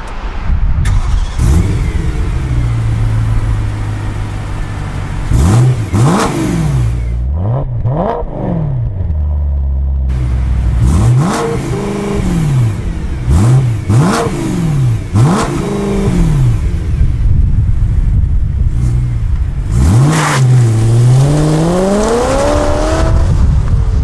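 Stock exhaust of a 2013 BMW M3's 4.0-litre naturally aspirated V8 idling, then revved in a series of sharp blips that rise and fall quickly. Near the end comes a longer pull with the engine note climbing steadily.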